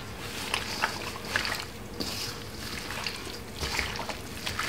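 Gloved hands squelching and slapping raw pork through a wet marinade in a stainless steel bowl. The sound is irregular and wet, with a few sharper slaps in the first second and a half.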